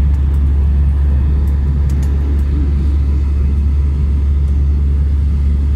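Steady deep rumble of an Airbus A320-200's engines and airflow heard inside the passenger cabin, with a few faint light clicks in the first couple of seconds.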